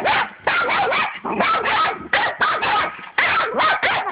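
Puppies barking at each other in a play fight, a quick run of short barks about three or four a second.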